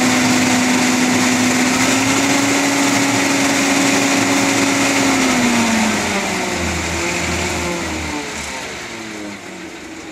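Minitractor-mounted vacuum blower running at speed with a steady high whine over the engine, then running down: about halfway through the whine drops in pitch and the sound fades.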